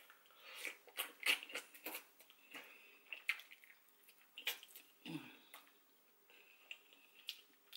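Close-up wet mouth sounds of eating oxtail off the bone: sucking, lip-smacking and chewing, heard as a run of irregular short clicks and slurps.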